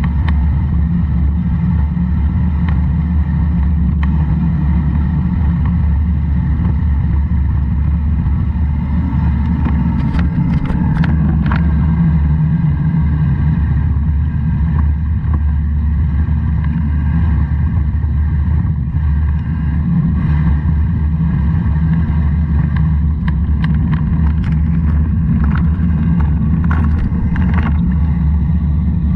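A motor vehicle running steadily on the move, a constant low rumble. A few short rattles or clicks come about ten seconds in and again in the last few seconds.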